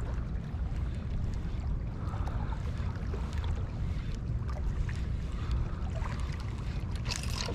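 Steady low rumble of wind buffeting an action camera's microphone, with faint water lapping on rocks. A brief rustle near the end.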